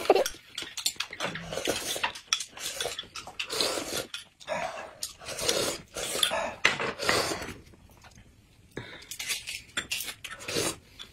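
Metal spoons clinking and scraping against glass mugs of a yellow drink, mixed with slurping sips from the spoons. The sounds come in short, irregular strokes, with a quieter stretch about three quarters of the way through.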